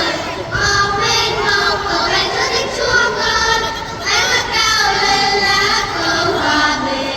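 Children's choir, a class of young schoolchildren, singing a song together in Vietnamese.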